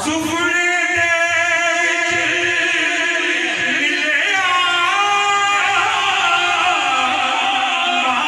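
A man singing a naat in a solo voice, drawing out long held notes: one long note for the first four seconds, then a shorter one, then a higher one held to the end.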